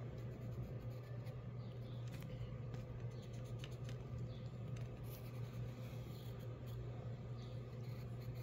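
Pencil scratching across paper in many short strokes, over a steady low hum.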